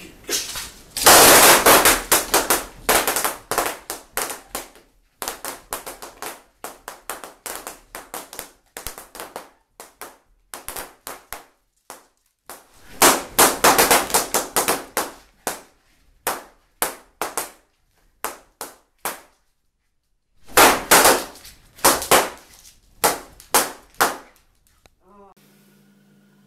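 Dozens of rubber party balloons bursting one after another as a Jack Russell terrier bites through them: sharp pops in quick flurries, some almost together, with short gaps between the flurries. The pops stop about a second before the end.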